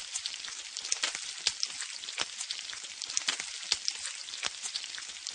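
Steady crackling and sizzling with many scattered sharp pops.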